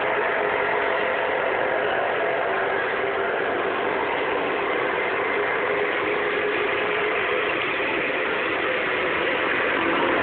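Steady, even mechanical background noise with faint hum tones in it and no distinct events.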